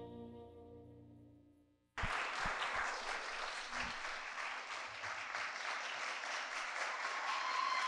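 The last held notes of the dance music fade away, and about two seconds in an audience breaks into loud applause that starts abruptly and carries on.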